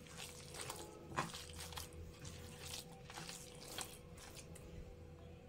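A hand kneading and squeezing a wet minced-meat and ground-spice mixture in a steel plate: faint, irregular squishing.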